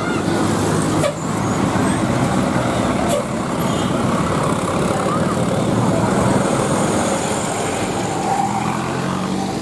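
Large bus engine running with steady road and traffic noise as it drives past, with a couple of brief knocks about one and three seconds in.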